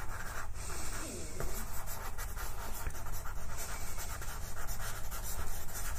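Pastel pencil scratching across pastel paper in a run of short, quick shading strokes.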